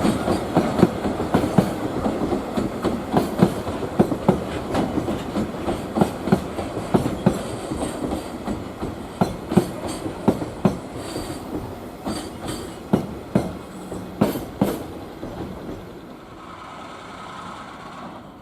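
Freight train's wagons passing over rail joints, the wheels clicking in repeated groups, growing fainter as the train draws away until the clicking dies out near the end.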